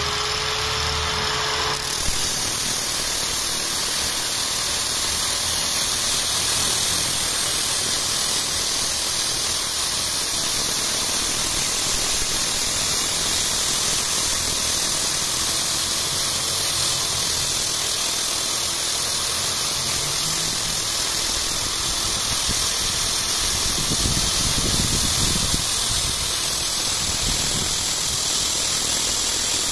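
An electric angle grinder and an electric drill running together, with a steel rod in the drill's chuck pressed against the grinder's spinning cutting disc: a steady, loud, high-pitched grinding hiss over the motors' whine. The hiss grows brighter about two seconds in, when the rod bears on the disc.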